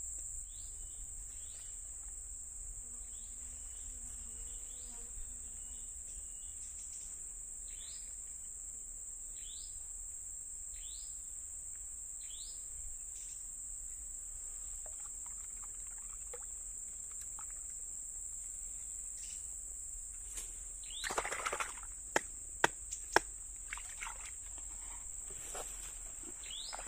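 A steady, high-pitched insect drone over a low background rumble, with a short rising call repeated every second or so in the first half. Near the end come a brief rustle and a few sharp clicks or knocks, the loudest sounds.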